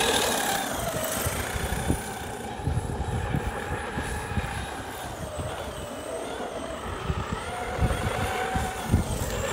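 Electric RC monster truck (Traxxas X-Maxx with a Castle 2028 800kv sensored brushless motor) driving on dirt: a high motor and drivetrain whine that rises and falls with the throttle. It is loudest as the truck passes close at the start, then fainter as it drives off, and swells again near the end. Gusts of wind buffet the microphone.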